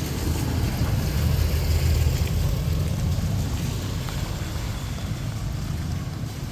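A motor vehicle passing close by on a wet street, its low engine rumble swelling about two seconds in and then fading, over a steady hiss of rain.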